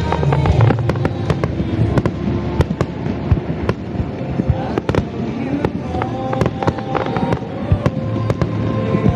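Aerial firework shells bursting in quick succession: a steady run of sharp bangs and crackles throughout.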